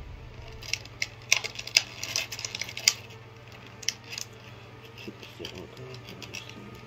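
Light clicks and taps of small hard objects being handled, clustered in the first three seconds with a few more later, over a low steady hum.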